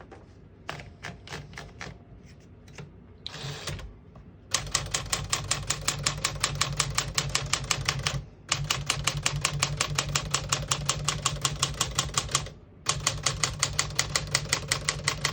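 1958 Smith-Corona Clipper manual portable typewriter: a few light clicks and a short rasp from the mechanism, then keys struck in fast, even runs of typebar strokes, with two short breaks.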